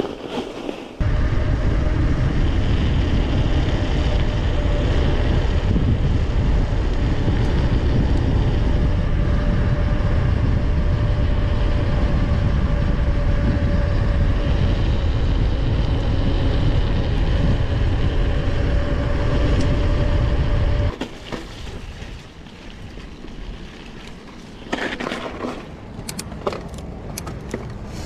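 Mountain bike rolling fast down a paved road: heavy wind noise on the camera's microphone, with a steady tyre hum. About twenty seconds in it drops to quieter rolling, with a few clicks near the end.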